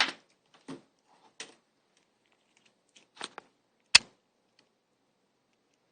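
Handling noise from a mobile phone: a handful of sharp clicks and knocks spread over about four seconds, the loudest at the start and about four seconds in.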